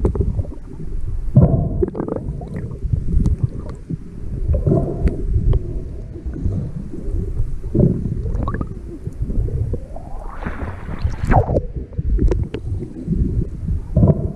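Muffled underwater sound picked up by a GoPro in its waterproof housing as a snorkeler swims: low rumbling water movement with uneven knocks and swells, and a rising swish about ten seconds in.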